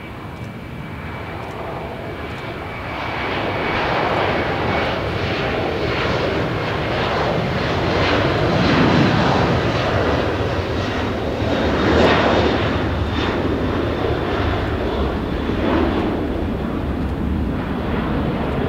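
Jet airliner taking off: the engine roar builds over the first few seconds and stays loud, at its loudest about twelve seconds in, with a faint steady whine over it.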